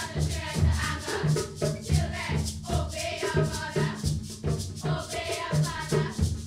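A group of girls singing together, accompanied by a hand drum and rattling percussion keeping a steady, even beat.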